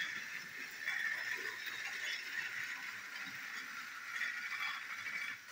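Two battery-powered toy train engines running along plastic track: a steady motor whir with the rattle of their wheels on the track, dropping away near the end as they move off.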